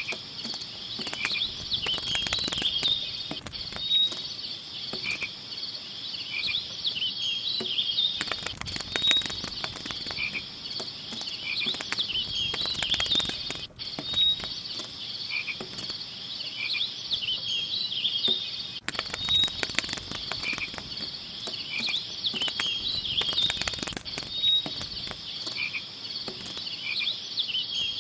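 Nature ambience of a steady high-pitched insect chorus with frog-like calls. The pattern repeats about every five seconds, as in a looped track, with scattered sharp clicks.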